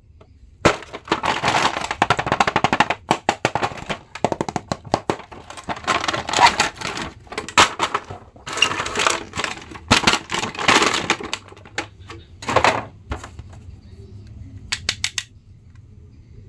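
Cardboard toy box and clear plastic blister tray crackling and rustling in the hands as an action figure is unpacked: a dense run of crinkles and clicks that dies down after about 13 seconds, with a few last clicks a little later.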